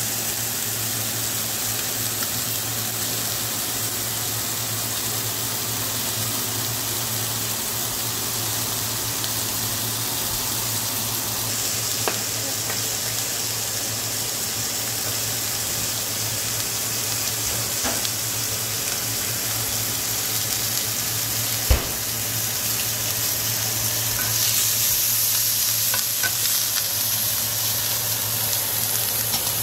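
Oil sizzling steadily in a nonstick frying pan as steelhead burger patties and then asparagus fry, over a steady low hum. A few light clicks and one sharp knock about twenty-two seconds in.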